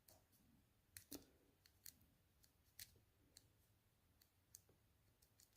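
Faint, irregular clicks of a TSA luggage combination lock's number ring being rotated by thumb, its detents clicking one after another while the shackle is held under tension.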